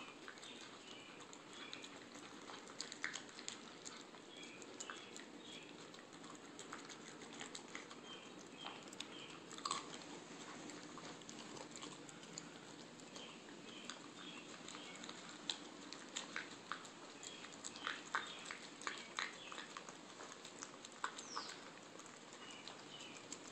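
Rat terrier eating dry kibble from a plastic bowl: faint, scattered crunches and clicks of chewing and of kibble knocking in the bowl, thickest about three-quarters of the way through.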